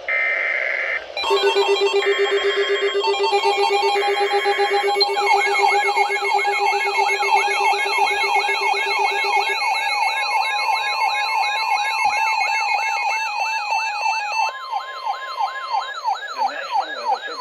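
Emergency weather alert tones from several receivers at once: three short screeching data bursts of the alert header, then overlapping alarms, a pulsing tone and a fast rising-and-falling warble, joined about ten seconds in by a steady weather radio alert tone.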